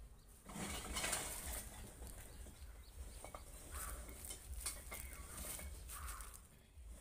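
Scattered knocks and scraping from rotted wood and brick debris being handled inside an opened tomb vault, with a louder rustling scrape about a second in.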